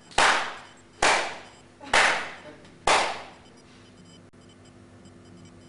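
Four loud, sharp slaps about a second apart, each with a short echo, as the man is hit for staring.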